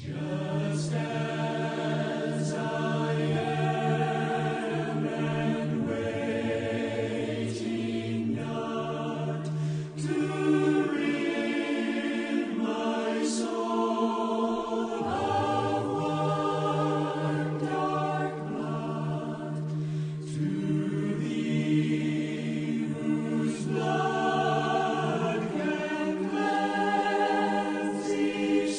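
Choir singing, several voices in harmony holding long notes.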